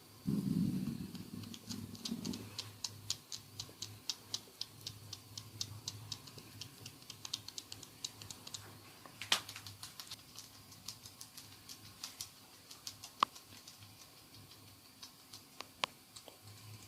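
Hands working a scalp in a close-miked head massage: a short muffled rubbing, then a long run of quick light clicks and taps, several a second, thinning out later with a few louder single snaps.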